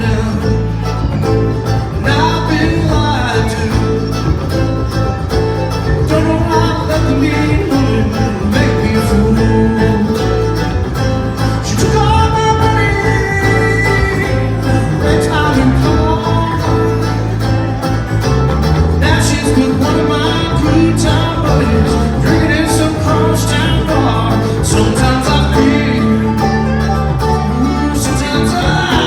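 Bluegrass band playing live on acoustic string instruments, with banjo and guitar in the mix.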